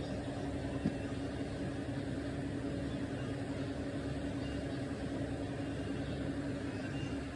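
A steady low mechanical hum holding one constant tone, with a single faint click about a second in.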